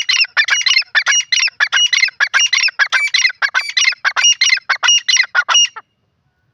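Grey francolin calling: a loud, rapid series of repeated call notes, about four a second, that stops shortly before the end.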